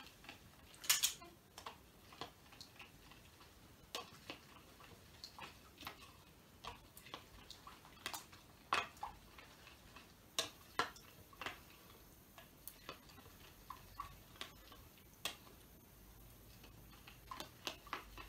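Metal spoon clicking and scraping against a plastic bowl in quick, irregular taps while stirring glue and contact lens solution into slime. The mixture is thickening but has not yet come away from the sides of the bowl.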